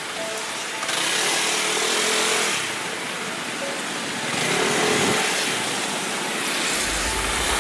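Riding on a motorcycle taxi: wind buffeting the camera microphone over the scooter's engine and the surrounding traffic, swelling twice.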